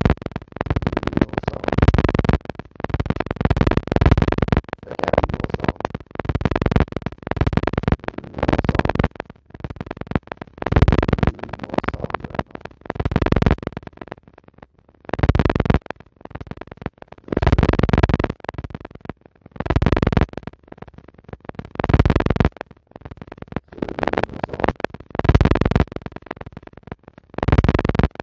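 Synthesizer-like background music, coming in short pulses with brief gaps between them.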